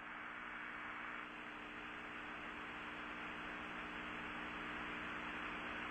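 Steady hiss with a low, steady hum underneath: the background noise of an old broadcast audio track.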